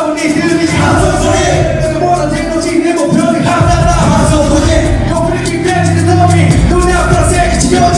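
Live hip-hop performance through a loud PA: a bass-heavy beat with voices rapping over it.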